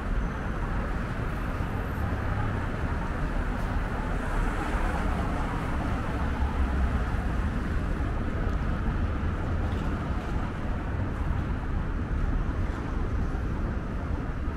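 Steady city traffic noise: cars and trucks passing on a wide road, with a heavy low rumble.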